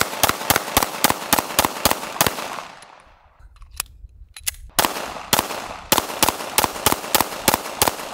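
Semi-automatic pistol fired in rapid strings, about five shots a second. The shots stop just before 3 s as the pistol runs empty and its slide locks back, a few small clicks follow during the reload, and rapid fire picks up again about 5 s in.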